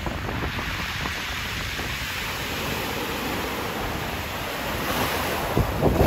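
Small sea waves washing up and drawing back over a pebble beach, a steady hiss of surf, with wind buffeting the microphone, stronger near the end.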